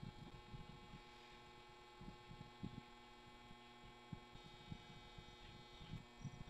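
Near silence: a faint steady electrical hum, with soft low knocks from a plastic housing being handled.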